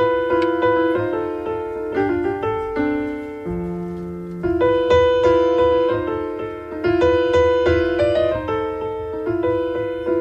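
Piano playing a repeating phrase of notes that swells and falls back every couple of seconds, with a lower held note about four seconds in.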